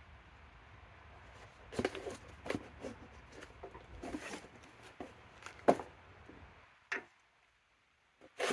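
A cardboard tool box being opened and its packaging handled: irregular rustling and scraping with a few sharp clicks, starting about two seconds in.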